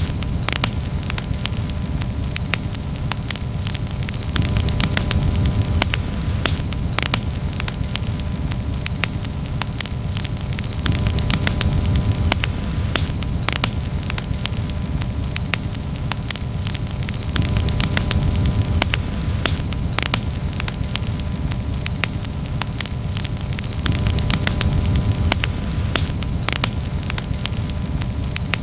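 Campfire crackling: a constant scatter of sharp pops and snaps over a steady low rumble.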